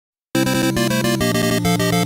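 Intro music: after a split second of silence, a fast run of bright pitched notes, changing several times a second.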